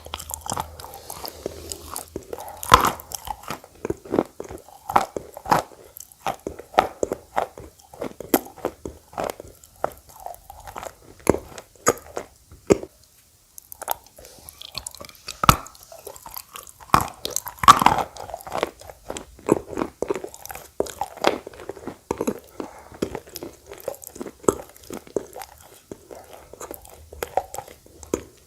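A person biting and chewing edible clay, a dense run of crisp, irregular crunches with a short pause about halfway through.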